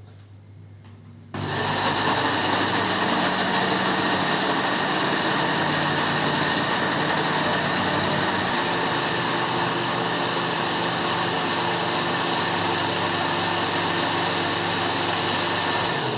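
Electric mixer motor switched on about a second and a half in, running steadily as it beats butter and sugar together, then cut off at the end.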